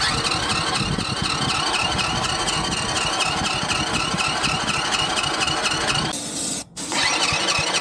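A mini Jeep's small engine cranked over by its electric starter with a fast, even pulse and a wavering whine, not firing. It stops briefly about six seconds in, then cranks again. The owners take the lack of fire and compression for a blown head gasket, after a head nut came off and the cylinder worked loose.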